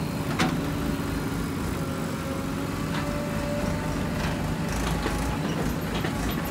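Diesel engine of a JCB 3DX backhoe loader running steadily under load while its backhoe bucket digs into hard earth, with a few short knocks and clicks, the clearest about half a second in.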